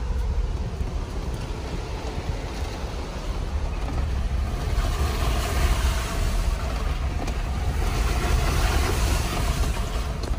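Jeep Wrangler driving up a rocky dirt trail in four-low, heard from inside the cab as a steady low rumble. A rushing hiss grows louder about halfway through.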